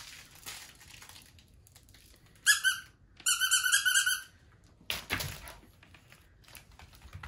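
Plush squeaky dog toy squeaked twice: a short high squeak, then just after a longer, fluttering one.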